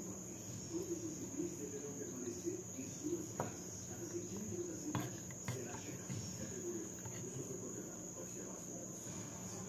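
Steady high-pitched cricket trill in the background, with a utensil clicking against the plate a couple of times midway as food is eaten.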